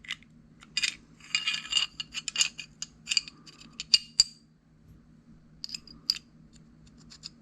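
Steel parts of a Remington Rand M1911 pistol clicking, scraping and clinking against each other as the barrel is fitted back into the slide during reassembly. A cluster of ringing clinks comes about a second and a half in, the sharpest clicks about four seconds in, and fainter ticks near the end.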